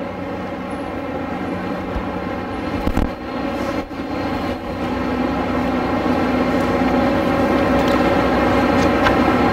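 A steady droning hum made of several held tones, growing gradually louder, with a couple of short knocks about three and four seconds in.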